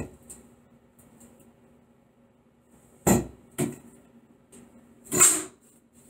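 A few sharp knocks and clicks from hand tools and metal hardware being handled against a wall: one at the start, two quick clicks about three seconds in, and a longer, brighter clatter just after five seconds.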